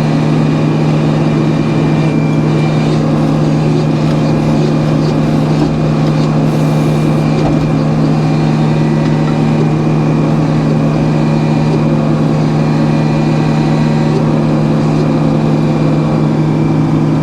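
Sawmill's engine running steadily at a constant pitch.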